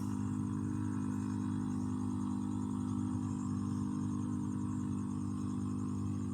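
Four-stroke engine of a power sprayer running steadily at constant speed, with an even hum.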